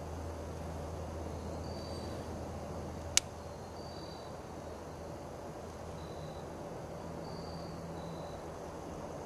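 Woodland ambience: faint, short, high chirps every second or two over a steady low hum, with one sharp click about three seconds in.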